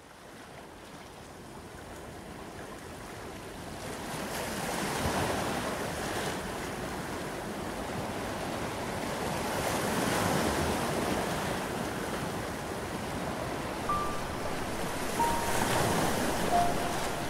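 Sea waves washing onto a beach, fading in from silence and swelling and ebbing about every five seconds. A few single held notes of music enter near the end.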